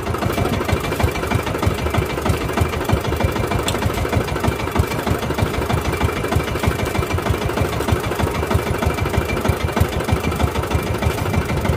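Engine of a small outrigger fishing boat running steadily under way, with a fast, even beat.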